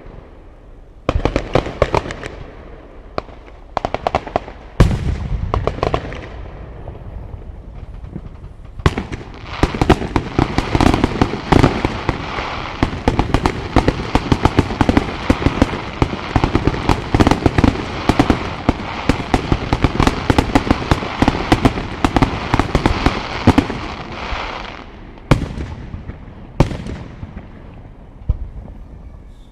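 Fireworks display: aerial shells bursting with sharp bangs and a heavy boom about five seconds in, then a dense run of rapid bangs and crackles for about fifteen seconds before it thins back to single bursts.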